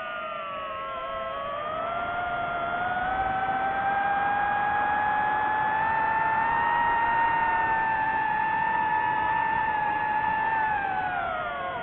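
DJI FPV drone's motors and propellers whining. The pitch dips, climbs slowly over the first few seconds and holds high, then falls sharply at the very end as the throttle comes off.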